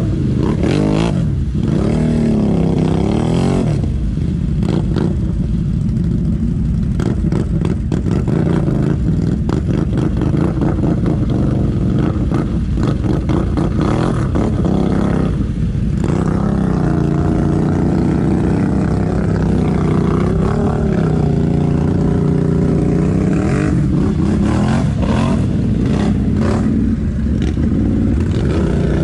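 ATV engine running close by, revving up and down again and again as it pushes through mud.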